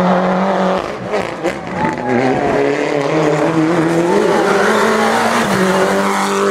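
Suzuki Swift rally car's four-cylinder engine at high revs under hard driving. Its note drops about a second in, wavers through a gear change and lift, then climbs again and holds high as the car comes past.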